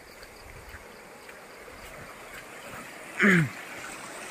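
Stream water running over rocks as a steady hiss, with one short loud voice-like sound about three seconds in whose pitch falls quickly.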